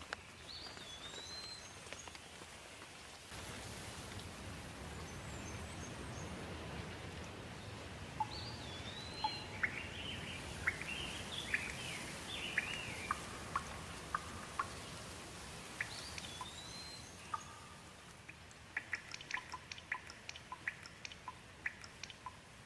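Steady rain hiss, heavier from about three seconds in until it eases near the end, with birds singing over it: a swooping whistle repeated three times and a burst of chirps in the middle. Near the end, a scatter of quick, sharp ticks.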